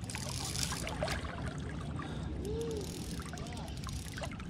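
Steady rush and trickle of a shallow stream, with a few small ticks over it.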